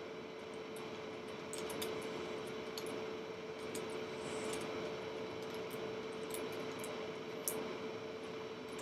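Plastic 1x3x3 Rubik's cube being turned during a speed solve: light, irregular clicks as the layers are flipped, one sharper click near the end, over a steady low hum.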